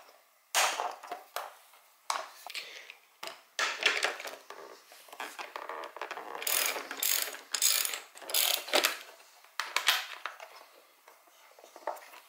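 Hand ratchet clicking in short, irregular strokes as bolts are worked loose on a motorcycle, with small metallic clinks and handling noises between strokes.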